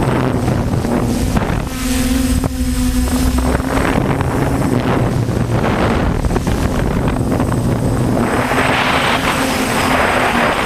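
DJI F450 quadcopter's motors and propellers buzzing in flight, their pitch stepping up and down as it holds against gusty wind. Wind buffets the microphone throughout, with a stronger gust near the end.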